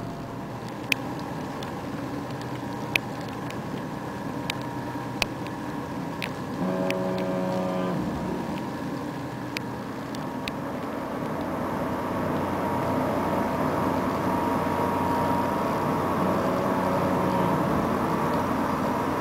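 Steady hum and rumble of the steam-powered lake freighter Montrealais under way, growing louder in the second half as she draws near. A few sharp clicks come in the first half, and a short pitched horn-like tone sounds about seven seconds in.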